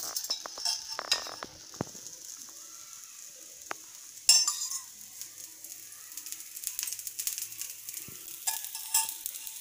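Dosa batter sizzling and crackling on a hot tawa as oil is added around it, flaring up louder about four seconds in and again near the end.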